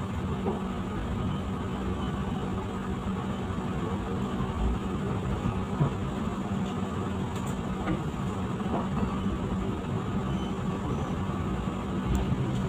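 Passenger train running: a steady rumble with a constant low hum and a few faint knocks.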